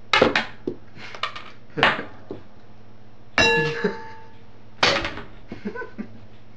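Four sharp clanks about a second and a half apart, the third ringing briefly with a clear pitched tone, with lighter clicks between them.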